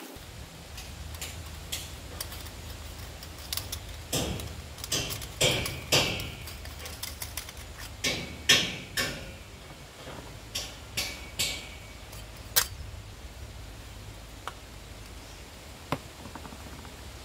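A small metal pipe fitting handled and twisted by hand: scattered clicks and short scraping sounds of metal parts turning against each other, bunched between about four and thirteen seconds in, then only a few more.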